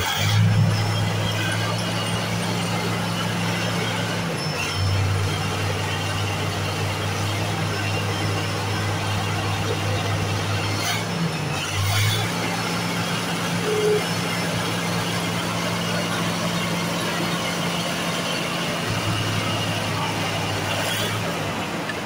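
Komatsu D65P bulldozer's diesel engine idling, a steady low hum that briefly swells a couple of times.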